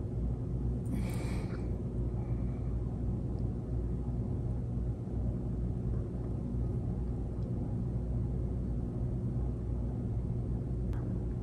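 Steady low background rumble with a faint hum, broken by a short hiss about a second in and a faint click near the end.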